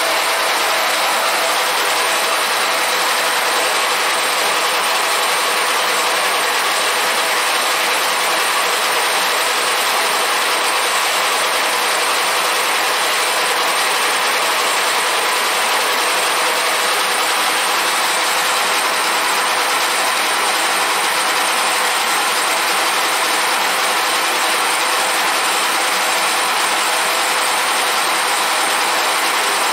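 Milling machine face-milling the deck of a 1.9 TDI aluminium cylinder head: a steady, even cutting noise as the cutter skims the gasket face flat.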